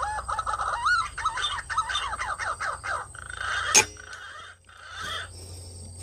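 A bird calls in a quick run of whistled, bending notes for about three seconds. Then, nearly four seconds in, comes a single sharp crack: the shot of a scoped air rifle.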